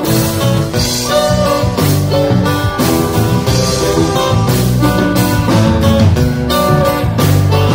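Live string band playing loud and steady, with plucked and strummed guitar over drum kit and bass.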